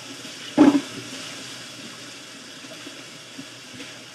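Hot tap water running steadily into a sink while raw pork neck bones are rinsed and handled, with one sharp knock about half a second in.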